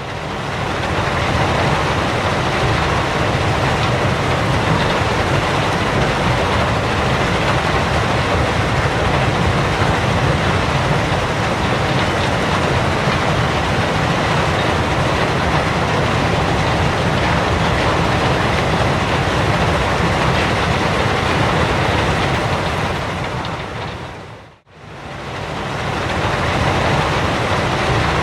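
Working gravel pit: a steady, dense machinery rumble with a faint whine running through it. It fades out briefly and comes back in near the end.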